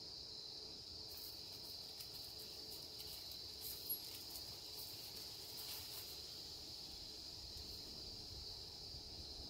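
Steady high-pitched chorus of insects trilling continuously, with one brief click about four seconds in.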